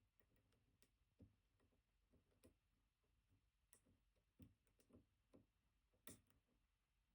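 Very faint, irregular clicks and ticks of a dimple pick and tension bar working the pins inside a BKS Janus dimple lock cylinder, with the loudest click about six seconds in.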